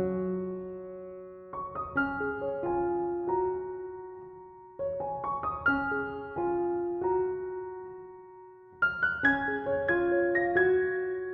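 Background music: a slow piano piece of single notes and chords, each struck note fading away, with pauses on held notes between phrases.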